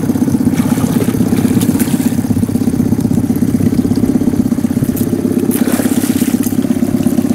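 Boat motor running steadily at low revs, a low hum with a fast, even pulse. Near the end a hooked pike splashes at the surface beside the boat.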